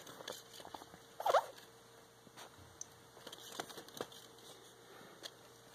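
Handling noise from a suede sneaker and its foam-lined box: soft scuffs and small taps as the shoe is turned over in the hands, with one brief squeak about a second in.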